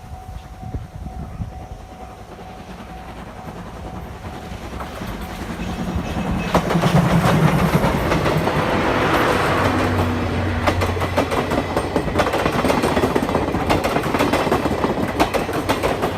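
Steam-hauled passenger train, the C57 steam locomotive with its 12-series coaches, approaching and running past. It builds up over the first few seconds and is loud from about six seconds in, with dense clattering of wheels on the rails.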